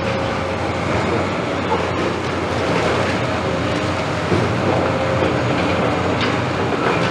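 Caterpillar tracked excavator's diesel engine running steadily under load, with a faint hydraulic whine, as its grapple works at a masonry wall. A few faint knocks of falling rubble come through the machine noise.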